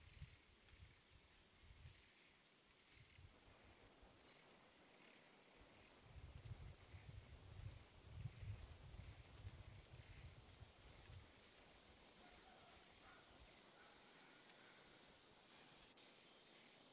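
Faint outdoor ambience: a steady high-pitched buzz with short high chirps every second or so, and a low wind rumble on the microphone for a few seconds midway.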